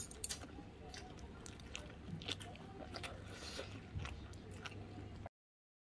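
A person chewing close to the microphone, with scattered small clicks over a steady low hum; the sound cuts off abruptly about five seconds in.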